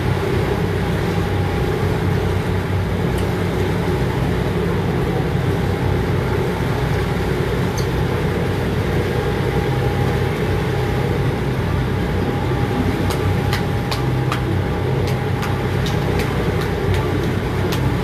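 Boat engine running steadily with a low drone and a faint steady whine above it. A few sharp ticks sound in the last few seconds.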